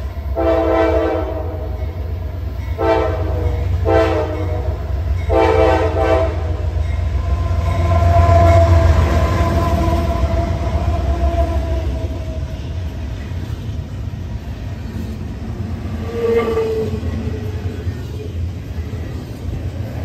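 Norfolk Southern diesel freight locomotive sounding its air horn in a horn show: four blasts in the first six seconds, then the horn held for several seconds as the locomotive passes close by with a heavy engine rumble. One short toot comes around 16 s over the steady rumble and rattle of the passing freight cars.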